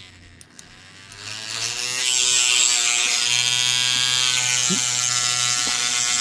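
Green Stuff World handheld cordless hobby paint shaker switched on about a second in, its motor winding up to a steady buzz as it vibrates a small paint bottle held in its cup.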